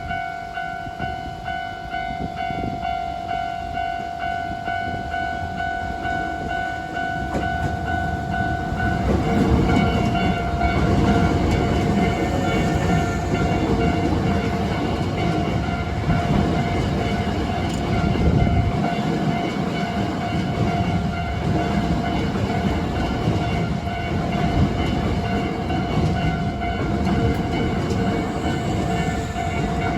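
Japanese level-crossing alarm ringing steadily while a Hankyu Railway train passes over the crossing. The train's wheels and cars rumble and clatter, swelling from about eight seconds in and staying loud to the end.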